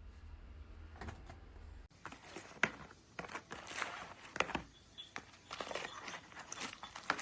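A low steady hum that cuts off abruptly about two seconds in, followed by irregular crinkling, rustling and sharp clicks of something being handled.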